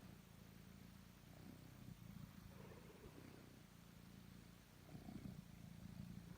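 Domestic cat purring softly: a low, continuous rumble that rises and falls in a slow rhythm.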